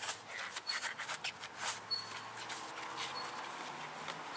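Wheel brush scrubbing a soapy alloy wheel: a quick run of brushing strokes through about the first two seconds, then lighter, steadier scrubbing.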